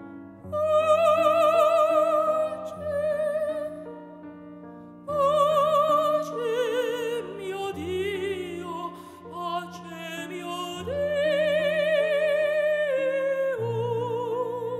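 Operatic singing over a piano accompaniment: a solo voice holding long notes with wide vibrato, in several phrases.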